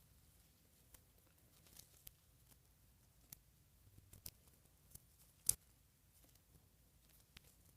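Faint, scattered clicks and rustles of small things being handled, the loudest a single sharp click about five and a half seconds in.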